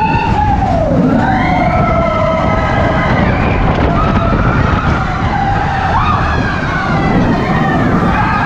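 Expedition Everest roller coaster ridden and recorded from the seat: heavy wind rumble on the microphone, with riders' screams gliding up and down in pitch over it.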